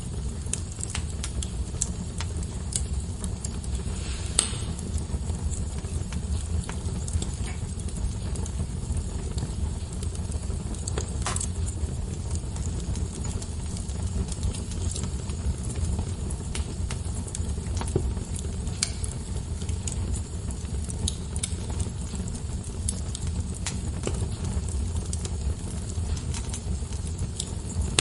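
Wood fire burning in a fireplace: a steady low rumble of flames with scattered sharp crackles and pops, a few of them louder than the rest.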